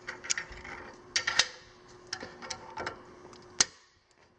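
A Knipex plier wrench working a fitting: a string of sharp, irregular metallic clicks as the jaws grip and turn it to tighten it, the loudest click about three and a half seconds in.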